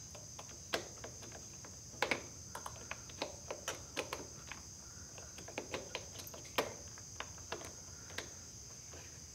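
Faint, irregular small clicks, ticks and scrapes of a rubber handlebar grip being pried and twisted loose with a flathead screwdriver, the grip's glue giving way. A steady high-pitched drone runs underneath.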